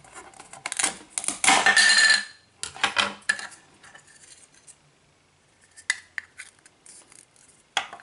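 Plastic toy knife knocking on a plastic cutting board as a velcro-joined toy strawberry is cut. The halves pull apart with a short velcro rip about a second and a half in. Scattered clicks follow as the plastic pieces are handled and set down.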